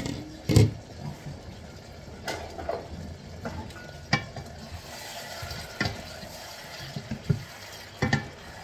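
Two wooden spatulas stirring chicken and tomatoes in a stainless steel wok, knocking and scraping against the pan over a steady sizzle. The loudest knock comes about half a second in.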